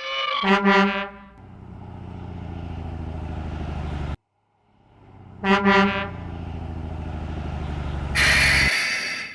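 Truck sound effects: a horn honks briefly, then a steady low engine rumble runs for about three seconds. The pattern repeats about five seconds in, and a loud hiss comes near the end.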